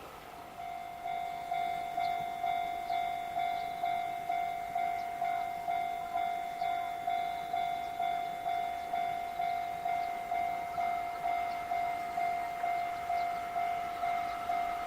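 Japanese electronic level-crossing warning bell. It starts about half a second in and dings steadily about twice a second, signalling that a train is approaching the crossing.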